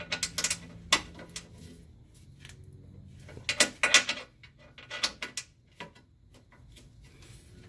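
Short clusters of sharp metallic clicks and clinks from a 13 mm hand wrench working the skid plate bolts as they are snugged down by hand.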